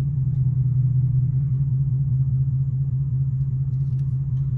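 Ford Mustang GT's V8 idling with a steady low rumble, heard from inside the cabin.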